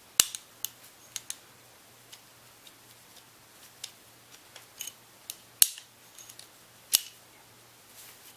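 Sharp metallic clicks and snaps from an AR-15 fire-control group with a Velocity one-piece single-stage trigger, dry function-checked: the safety selector is switched and the trigger pulled. There are three louder snaps, one near the start, one about two-thirds through and one a little after, with lighter ticks between them.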